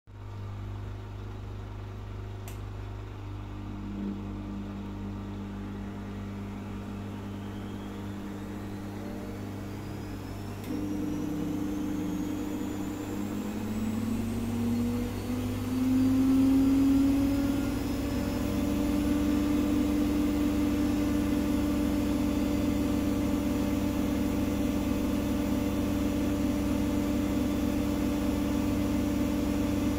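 Gorenje SensoCare WAE74 front-loading washing machine spinning up: the drum motor's whine rises in pitch as the drum accelerates, growing louder about a third of the way in. It then settles into a steady high-speed spin a little past halfway, the spin reaching 1400 rpm. The motor runs quietly on freshly replaced bearings, over a steady low hum.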